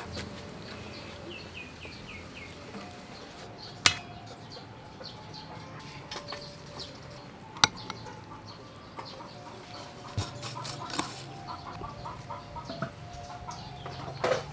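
Sharp clinks of kitchen utensils against a metal pot and a ceramic bowl while a noodle soup bowl is filled: single clinks about four and seven seconds in, then a quick cluster of them about ten seconds in. Birds chirp in the background, with a short falling run of chirps about a second in.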